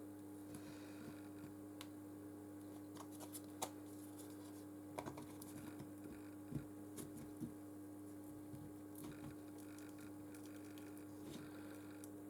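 Faint, scattered clicks and scratches of a pry tool working under a Nexus 6P's glued-in battery as the adhesive is loosened, over a steady low hum.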